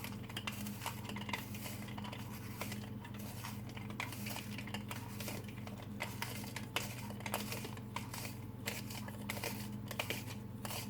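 Handheld twist garlic slicer being turned, its blades cutting through garlic cloves with a run of small irregular clicks and crunches. A steady low hum runs underneath.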